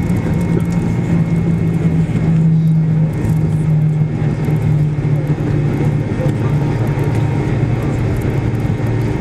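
Cabin noise of a McDonnell Douglas MD-80 rolling along the runway after landing: a steady low engine hum over a broad rumble, easing slightly lower in pitch about three seconds in.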